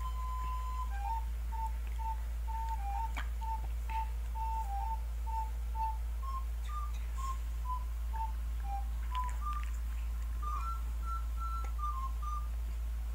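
Background music: a simple melody of pure, beep-like tones played one note at a time, over a steady low hum.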